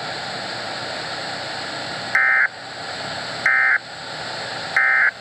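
NOAA Weather Radio receiver playing three short digital data bursts about 1.3 s apart over steady radio hiss. These are the EAS/SAME end-of-message code that closes the weekly test broadcast.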